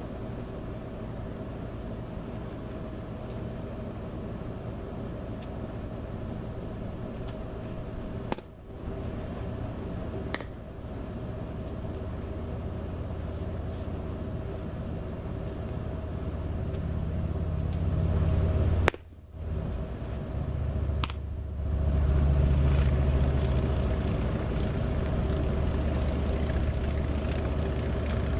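A steady low mechanical hum that grows louder twice in the second half, broken by four sharp clicks.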